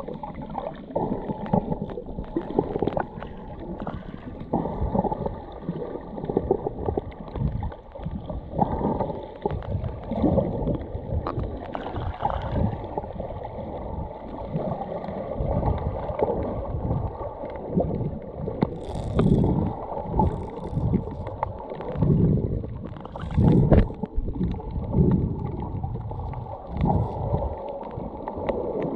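Muffled underwater sound heard through a submerged camera: uneven sloshing and gurgling of sea water in shifting surges, dull, with almost nothing in the higher pitches.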